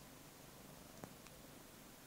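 Near silence, with a faint click about a second in from a Siamese cat sucking on its fleece blanket.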